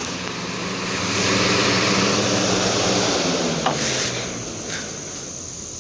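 2004 Galaxy box fan running on high: a steady wash of air noise over a low motor hum, growing louder about a second in and easing off again after about four seconds.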